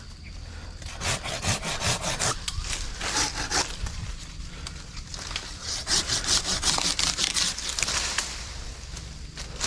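Hand pruning saw cutting through a melaleuca branch, rapid back-and-forth strokes of about five a second, in three bursts with short pauses between.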